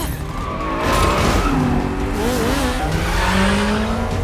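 Car-chase sound effects: an SUV's engine revving and tyres squealing, with the engine note rising steadily through the second half.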